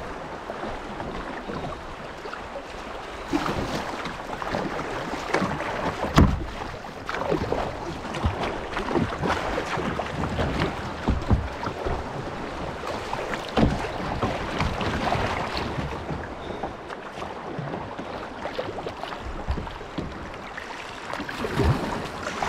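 Kayak paddling on a river: irregular splashes of paddle strokes in the water, with a sharp knock about six seconds in.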